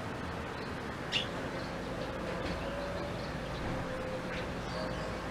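Blackthroat (black-throated canary) giving one sharp, falling chirp about a second in, then a couple of fainter short chirps, over steady background noise and a low steady hum.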